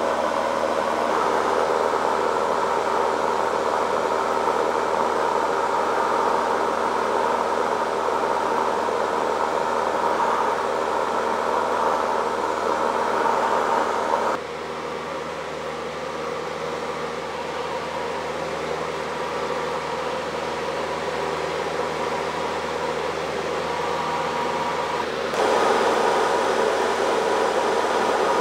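Steady drone of a single-engine light propeller plane's engine and propeller, heard inside the cabin in flight. It drops quieter about halfway through and comes back up near the end.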